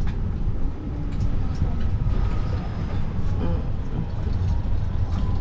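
Open-sided golf-cart shuttle driving along a paved path: a steady low rumble of the moving cart, with a faint steady whine running underneath.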